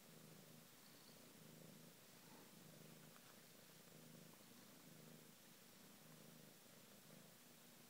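Domestic cat purring, faint and steady, swelling and fading with each breath about once a second.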